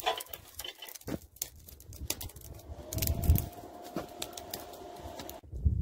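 Scattered light clicks and clinks of tongs and steel being handled while rebar is reheated in a blacksmith's forge, with a few dull thuds. A faint steady whine comes in about halfway and cuts off suddenly near the end.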